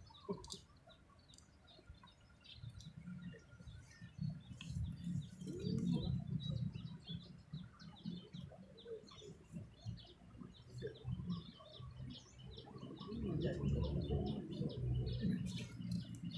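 Small birds chirping in many short, high notes, over a low rumble that swells a few seconds in and again near the end.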